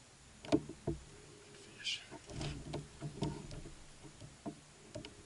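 Irregular sharp knocks and clicks from a fishing rod, reel and kayak being handled while fighting a fish, with a brief low murmur of voice in the middle.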